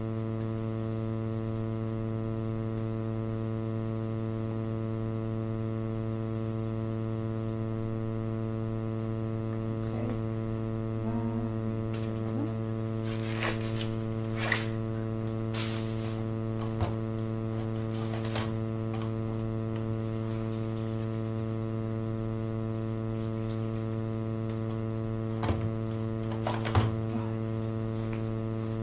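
Steady electrical mains hum, a low buzzing drone. A few short clicks and rustles of handling come between about 12 and 19 seconds in and again near the end.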